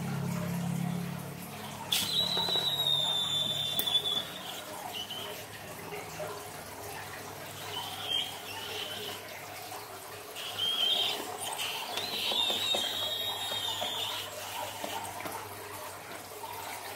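Scissors snipping a liquid-filled rubber balloon, then its contents pouring and splashing into a glass dish of slime ingredients. High squeaks come in several short stretches as the wet balloon is handled.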